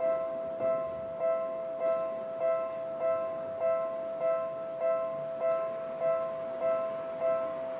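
Electronic railway level-crossing warning bell ringing, the same two-note strike repeating evenly about every 0.6 seconds.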